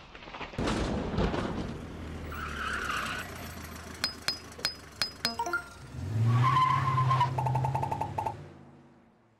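Layered sound effects for an animated logo. A rain-like hiss comes first. About halfway in there is a quick run of about six sharp clicks. Then a vehicle engine hums low under a high ringing tone, and everything fades out near the end.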